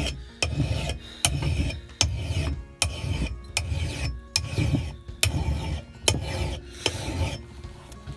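Flat file rasping along the bit of an axe in steady sharpening strokes, about one stroke every 0.8 s, each beginning with a sharp scrape. The strokes stop a little before the end.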